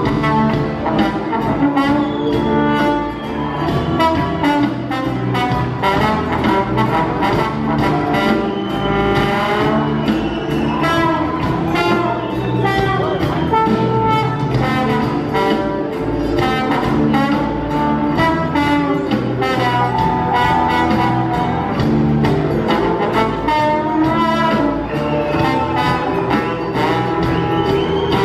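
Live band playing an instrumental passage led by a horn section, trumpet and trombone lines over drum kit, bass and guitar.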